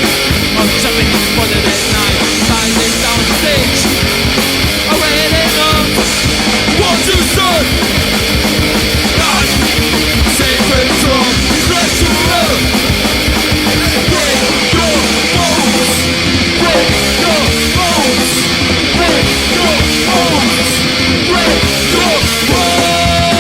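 Hardcore punk band playing loud, dense music without a break.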